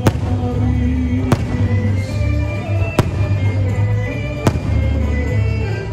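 Aerial firework shells bursting, four sharp bangs about a second and a half apart, over loud music with a heavy bass.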